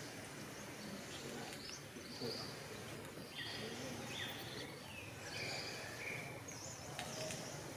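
Short, high-pitched animal chirps come and go over a steady outdoor background hiss.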